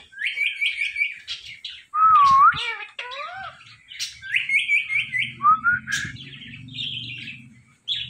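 Indian ringneck parakeets chirping and whistling: quick runs of short, repeated chirps, broken by a few loud gliding whistles, the loudest about two seconds in.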